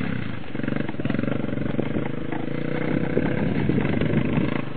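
ATV engine running at steady throttle.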